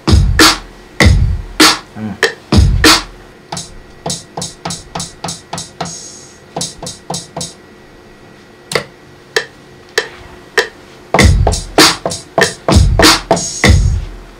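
Programmed hip-hop drum-machine beat playing: heavy kick and snare hits, thinning to lighter, quicker percussion hits in the middle with a short pause, then the heavy kick comes back near the end.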